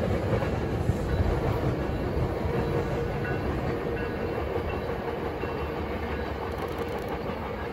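Metrolink commuter train pulling away, its wheels clattering over the rails in a steady rumble that slowly fades as it recedes.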